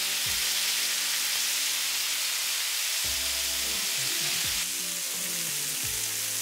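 Doves in olive oil frying with a steady sizzle, which softens a little about three-quarters of the way through, over background music.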